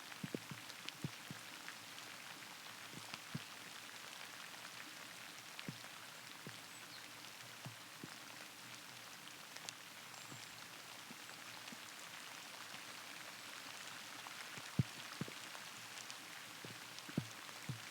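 Light rain: a steady soft hiss with scattered irregular drips and ticks, and a few louder drops, the loudest about three-quarters of the way through.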